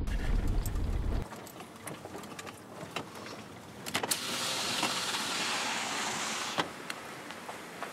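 Car on a dirt road: low road rumble for about the first second, then scattered small knocks and clicks, and a steady hiss for about two and a half seconds in the middle that starts and stops sharply with a click.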